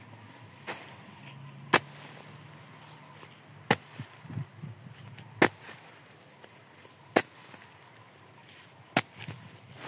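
Homemade hole punch, a serrated metal can on a pole, pressed through plastic mulch film on a planting bed: a sharp snap each time it cuts a hole, five loud snaps about every second and three-quarters.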